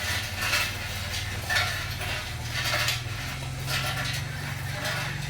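Small electric motors and plastic gearboxes of a mini remote-control construction toy running, with a steady low drone that steps up in pitch a few times as the load or speed changes. Repeated short clicks and scrapes sound over it.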